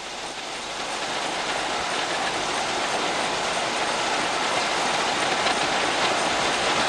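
Potato handling line running: potatoes tumbling and rattling out of a receiving hopper onto conveyor belts, a dense steady clatter that grows gradually louder.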